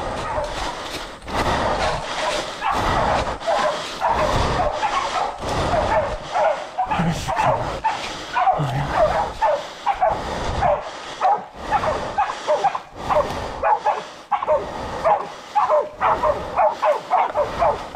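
Pig-hunting dogs barking again and again as they hold a boar at bay, with the crunch and rustle of someone hurrying through dry leaf litter and scrub, heaviest in the first few seconds.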